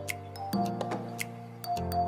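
Upbeat background music: held chords with a light, ticking percussion beat.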